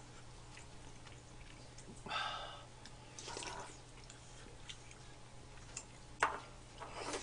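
Quiet eating sounds of rice cake soup: chewing and a few short sips and slurps, with small clicks of a spoon and a wooden ladle against the bowl and pan.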